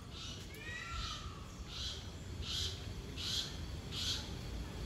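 Birds calling: a couple of downward-slurred chirps in the first second, then a run of about six short, raspy high calls, each a little under a second after the last.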